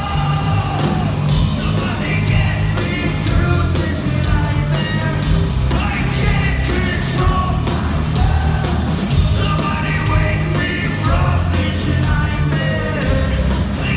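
Hard rock band playing live in an arena, heard from the audience: heavy drums, distorted guitars and bass under a singer's vocal line.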